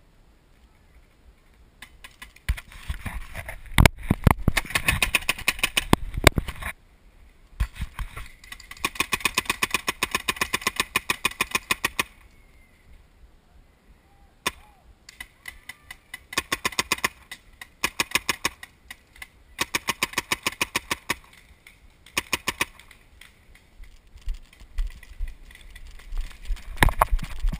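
Paintball markers firing in rapid strings of evenly spaced shots, each string lasting one to three seconds, with short pauses between them.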